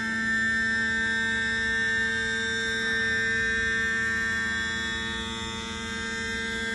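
Mercury Verado outboard's electric power trim and tilt pump running, a steady whining hum as it lowers the tilted-up motor back down.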